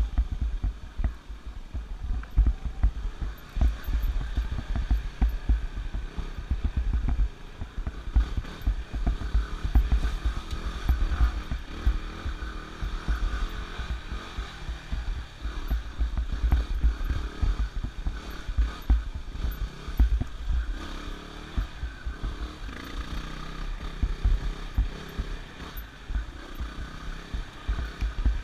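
Yamaha WR250R's single-cylinder four-stroke engine running under way, revs rising and falling with the throttle, over a heavy uneven rumble of wind and bumps on the camera microphone.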